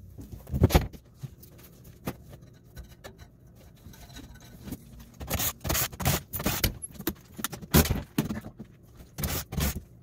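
Irregular metallic clicks and clinks of screws being taken out of a water source heat pump's sheet-metal access panel, with a thump near the start; the clicks come thick and fast in the second half.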